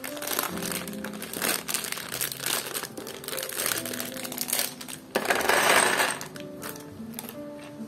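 A plastic bag of Mould King building bricks crinkling and rustling as it is worked open, with small clicks of the bricks inside. About five seconds in, the bricks are poured out, clattering into a plastic tray for about a second: the loudest part. Soft background music with held notes plays underneath.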